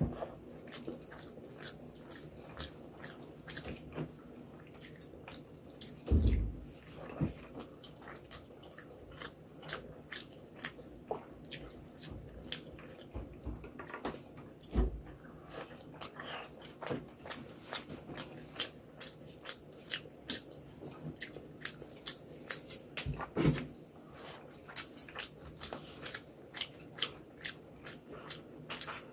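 Close-miked chewing and wet mouth sounds of a person eating rice with egg curry by hand, with many small clicks and smacks and fingers working the rice on the plate. Two louder dull thumps stand out, about six seconds in and again past the three-quarter mark.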